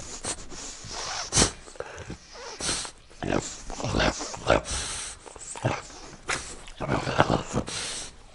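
French bulldog recorded close up, sniffing, grunting and groaning in short irregular bursts with noisy breaths between them.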